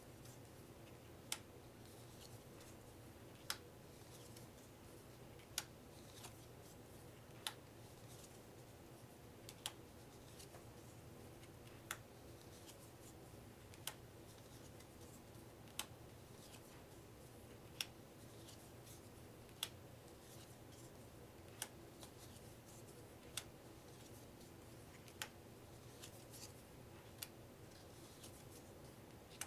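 Playing cards being laid down one at a time, each making a sharp click, about one every two seconds, over a faint steady hum.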